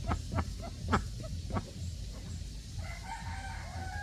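A duck quacking in a quick series of short quacks, about three or four a second, the loudest about a second in, stopping after under two seconds. Near the end a different, higher and more drawn-out call begins.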